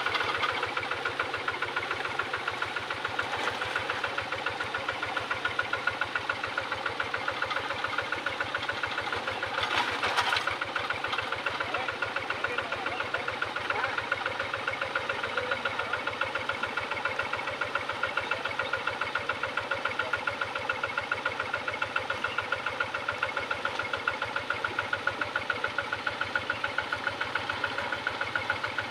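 Two-wheel hand tractor's single-cylinder diesel engine running steadily with an even, rapid putter, with one brief louder burst of noise about ten seconds in.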